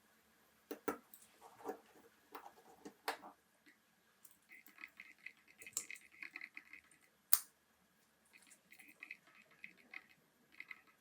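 Small, sharp metallic clicks and taps of watch parts and tools being handled during reassembly of a wristwatch, with two stretches of rapid fine clicking in the middle and latter part.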